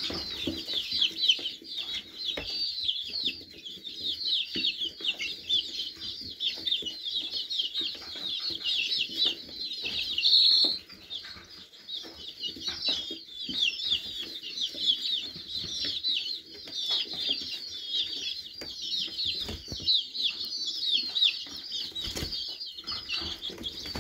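A flock of young chicks, a few weeks old, peeping continuously: many short, high, falling peeps overlapping, with a louder burst of peeps about ten seconds in. Scattered soft taps and rustling in the straw run underneath.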